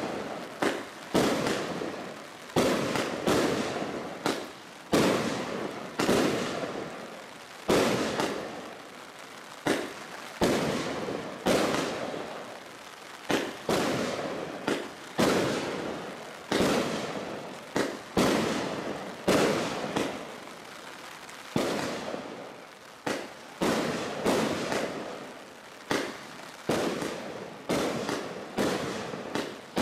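Bright Star Thunder Bomb 100-shot 1.3G firework barrage firing shot after shot, about one a second. Each shot is a sharp bang that dies away over about a second.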